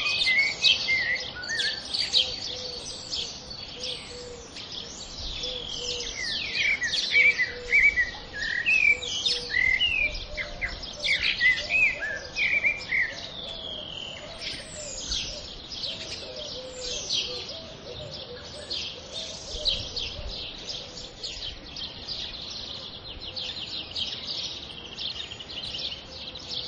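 Several small birds chirping and singing at once: a dense chorus of quick, overlapping calls and rapid downward-sweeping notes. It cuts off abruptly at the end.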